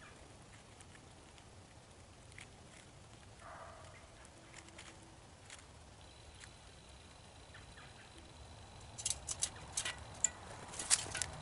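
Grey squirrel feeding at seed trays on a metal patio table: scattered faint ticks, then a quick run of sharp clicks and taps over the last couple of seconds as it turns around on the table.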